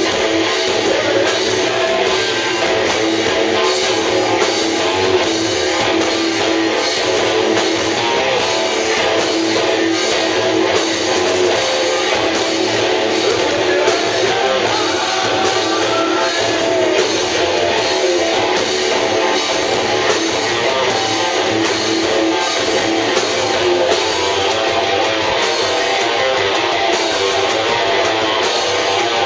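Hard rock band playing live with electric guitars and bass, loud and dense throughout, with no singing.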